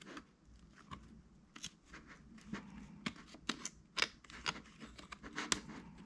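Irregular small clicks and scrapes of plastic against the laptop chassis as the dummy drive holder is worked out of a Lenovo Legion 5's SATA drive bay, with the battery edge lifted to free it.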